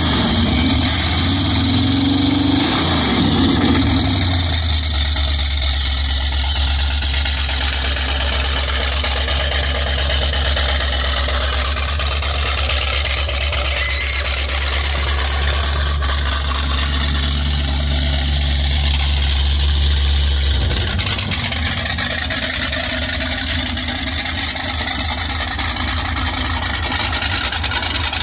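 Oldsmobile 455 V8 in a jet boat running loud through upswept chrome headers. It revs briefly in the first few seconds, then holds a steady idle, and its low note changes about twenty seconds in.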